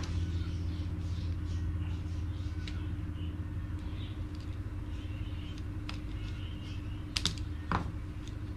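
Steady low hum with a few light clicks and ticks from a screwdriver working on the plastic motor housing of a Makita angle grinder, two sharper clicks about seven seconds in.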